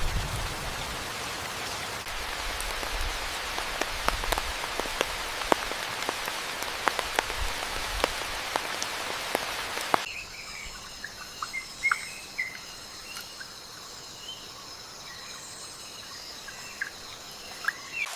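Steady rain with individual drops ticking close by. About ten seconds in it cuts suddenly to a quieter rainforest bed: insects trilling steadily, with scattered short bird chirps.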